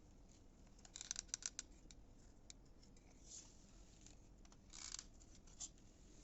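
Near silence with faint handling sounds: a quick run of small clicks about a second in, a short scrape near five seconds, and a few single ticks.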